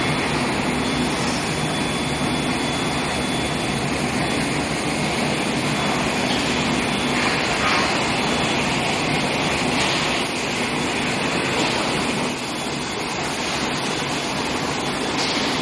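Steady factory noise of an induction heating line for steel pipe running: a continuous hum with a faint high steady tone, and brief hissing swells about 7, 10 and 15 seconds in.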